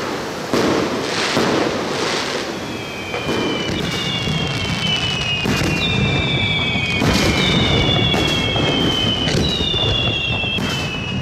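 Aerial fireworks bursting, with sharp bangs coming roughly once a second. From about three seconds in, several high whistles overlap the bangs, each falling slowly in pitch.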